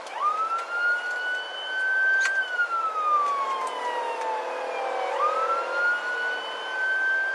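Police patrol car siren in wail mode, heard from inside the pursuing car over steady road noise: the tone rises quickly, falls slowly, and rises again about five seconds in.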